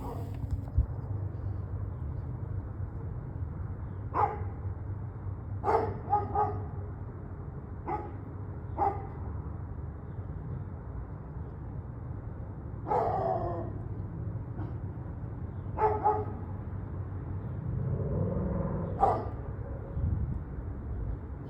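A Doberman barking in single, separate barks at irregular gaps, about eight in all.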